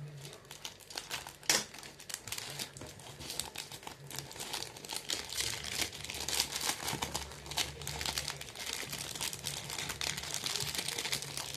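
Packaging material crumpled and handled by hand: a dense, continuous crinkle and crackle, with one sharp crack about a second and a half in, getting busier in the second half.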